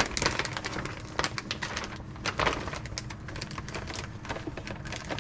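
FoodSaver vacuum sealer drawing the air out of a plastic bag, its pump humming low under a dense, rapid crackling of the plastic as it collapses and crinkles.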